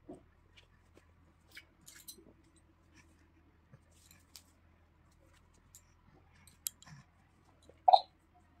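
Quiet, scattered small clicks and soft rustles of hands and clothing being handled around a baby, with a short squeak near the end.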